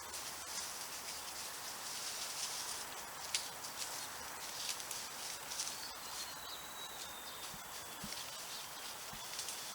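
Light rustling and crackling of undergrowth, with scattered small snaps and ticks, outdoors in the countryside. A faint thin high whistle, like a distant bird, comes in about halfway through.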